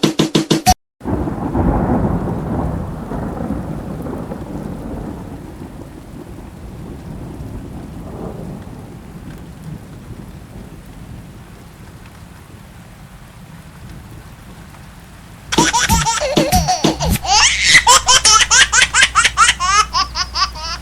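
Thunder rumbling with rain: the rumble starts loud about a second in and slowly fades over some fourteen seconds. About fifteen seconds in, a baby starts laughing loudly in quick repeated bursts.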